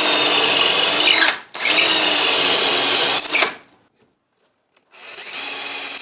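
Cordless drill boring into wood, the motor running in two loud spells with a short break between. After a second of silence it runs again, quieter, as it drills through a guide jig into the end of a cherry dowel.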